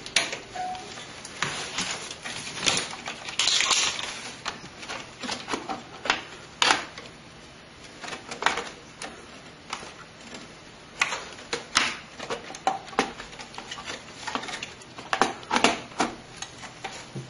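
Irregular clicks, taps and rattles of plastic and metal computer parts being handled and fitted inside a PC case, with a brief rustle about four seconds in.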